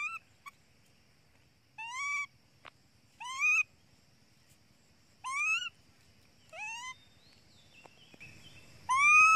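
Baby macaque crying: a series of short, high, upward-gliding calls, about one every second and a half, with the loudest near the end.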